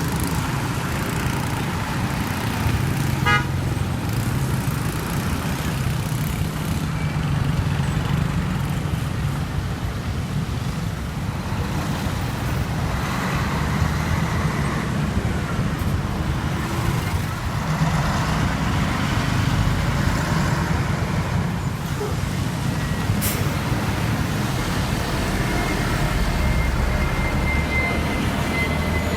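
City street traffic with heavy trucks' engines running, a steady low rumble. Near the end a long, steady high-pitched tone sounds, sagging slightly in pitch as it ends.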